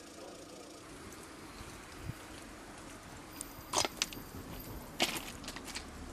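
Footsteps crunching on railway-track gravel ballast, a few irregular steps starting about halfway through over a low background hum. A faint idling engine fades out in the first second.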